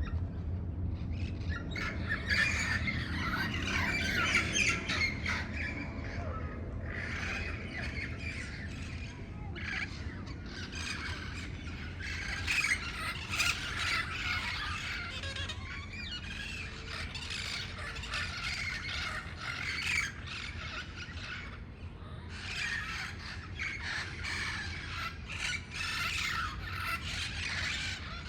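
A flock of parrots squawking, many harsh calls overlapping in bouts that rise and thin out several times, over a low steady rumble.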